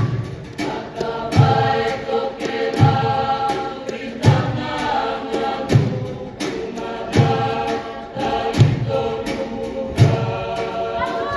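A large group of voices singing together in sustained harmony, with a low thud about every second and a half keeping the beat.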